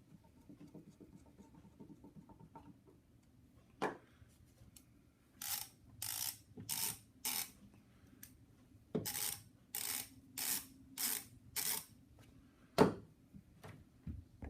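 Small hand-tool work on a mechanic's ratchet head during reassembly. A single click, then two runs of short rasping strokes, about two a second (four, a pause, then five), and a sharp loud click near the end.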